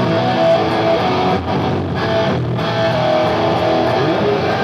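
Electric guitar played through an amplifier: a continuous stream of sustained notes, with two brief breaks in the playing.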